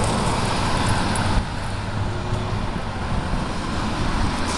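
Loud, steady rushing noise with a low rumble, from a hand covering and rubbing against the phone's microphone.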